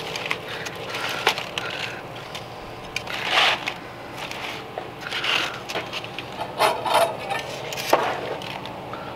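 Aluminium foil crinkling and rustling in irregular bursts as gloved hands press and move a smoked brisket resting in opened foil.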